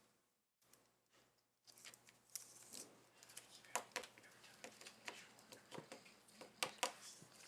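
Faint light clicks and rustles of trading cards being handled and flipped through, starting about two seconds in after near silence.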